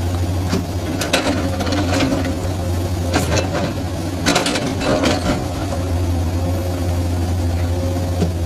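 Komatsu hydraulic excavator's diesel engine running steadily at a low hum, with several sharp knocks from the machine working in the first half or so.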